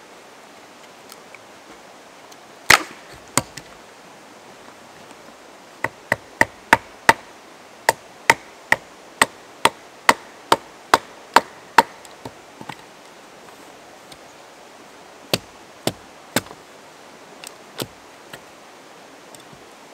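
Axe chopping firewood into kindling on a log. One heavy split comes about three seconds in, then a quick run of sharp chops, about two a second, each with a short ring, and a few scattered chops near the end. A steady stream rushes underneath.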